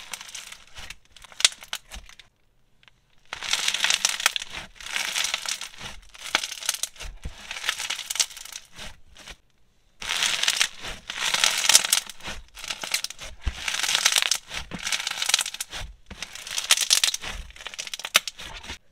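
Bright green Bingsu bead slime being squeezed, stretched and pressed by hand: dense, crunchy crackling of the plastic beads popping against each other. It comes in several stretches, with a near-silent pause about two seconds in and a brief break just before the halfway point.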